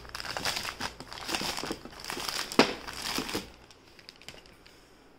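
Thin LDPE plastic bag crinkling as it is opened to take out a hair straightener, with a sharp crackle about two and a half seconds in. The crinkling stops about three and a half seconds in.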